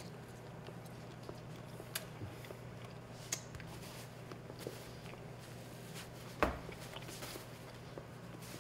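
Quiet kitchen room tone with a low steady hum, a few faint clicks from hands working at a counter, and one sharper knock about six and a half seconds in.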